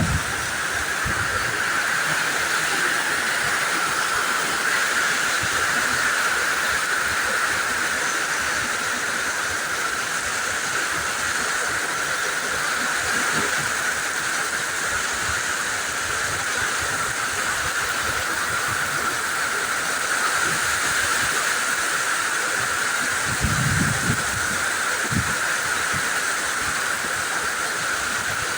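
Heavy rain falling steadily as an even hiss, with two brief low thumps late on.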